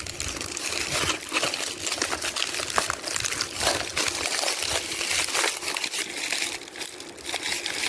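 Plastic wrapping crinkling and rustling as it is pulled and peeled away by hand, with irregular crackles throughout.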